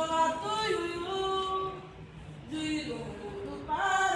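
A woman singing unaccompanied, holding long notes that glide between pitches. The voice dips briefly about two seconds in and comes back strongly near the end.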